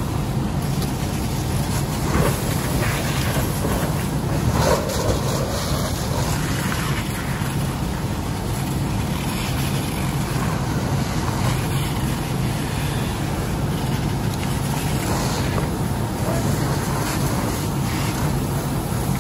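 Fire engine's diesel engine running with a steady low drone.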